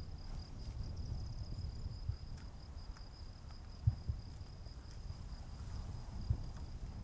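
Steady high-pitched trill of crickets over a low rumble, with two soft thumps about four and six seconds in.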